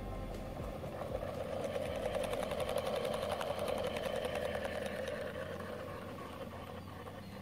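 A small motor running with a rapid buzzing rhythm, growing louder over the first few seconds and then fading away.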